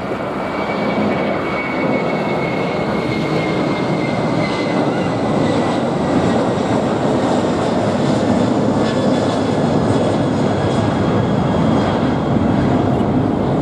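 Airbus A330-300 twin-engine jet airliner climbing out just after lift-off at take-off thrust: a loud, steady rush of jet noise with a thin high whine that slowly falls in pitch.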